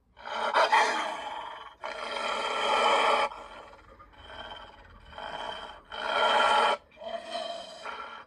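Animated villain wolf's growls and roars as film sound effects, a string of about five rough calls in a row, some short and some lasting a second and a half, the loudest near the start and again about six seconds in.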